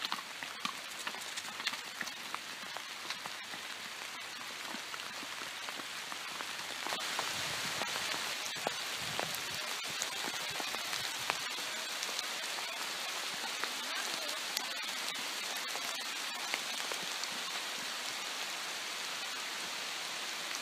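Rain falling steadily, an even hiss with scattered clicks of single drops; it gets a little louder about seven seconds in.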